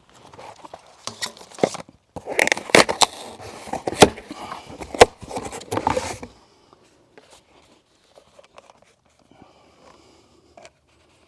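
Objects being handled: about six seconds of scraping and rustling with several sharp knocks, then only faint occasional clicks.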